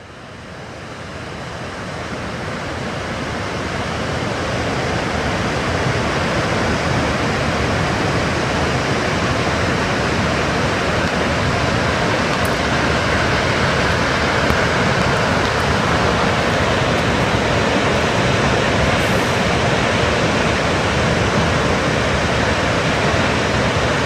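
Steady rushing of a tall mountain waterfall, the Fudō Seven-Tier Falls, fading in over the first few seconds and then holding even.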